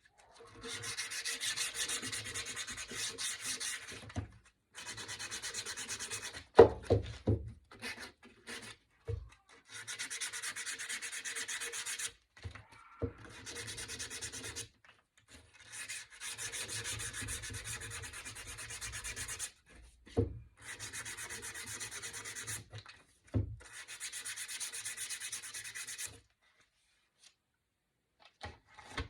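Small piece of sandpaper rubbed by hand along the edges of a painted wooden cutout, in runs of quick back-and-forth strokes lasting a few seconds with short pauses between, lightly distressing the paint so the bare wood shows through. A few short knocks, the loudest about seven seconds in, break the runs.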